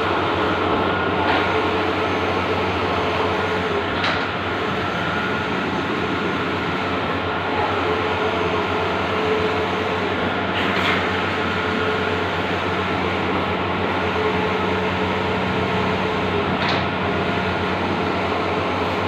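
Bluewin outdoor large-format digital printer running: a steady mechanical whir and hum with faint tones that come and go, and a few short clicks spread through it.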